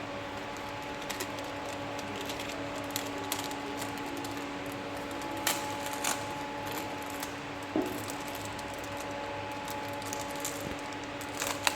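Steady low hum with a few faint scattered clicks and handling sounds, made while tape is wrapped around the base of a car lift's hydraulic cylinders.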